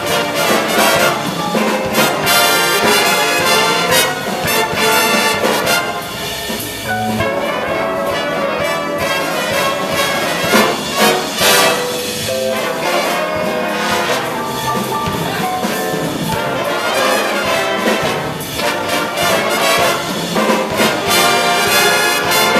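Jazz big band playing a swing chart, with trumpets, trombones and saxophones sounding together.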